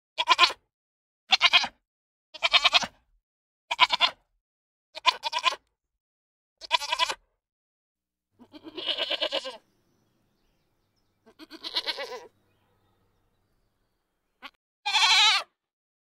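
Goats bleating: six short, wavering bleats in quick succession, then two longer, lower bleats, and a higher, steadier bleat near the end.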